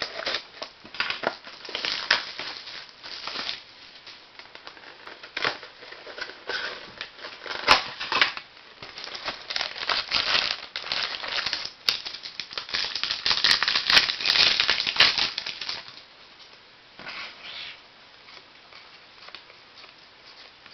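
Trading card box and packs being unwrapped: wrapper crinkling and tearing in irregular spurts, busiest about halfway through.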